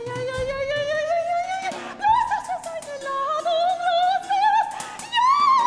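Solo soprano voice singing long sliding notes that climb slowly, leap higher about two seconds in, dip, and rise again to a high note with vibrato near the end.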